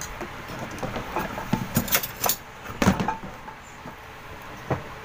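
Clatter of eating utensils and tableware being handled: a quick run of small clicks and knocks through the first three seconds, loudest near three seconds in, then one more knock near the end.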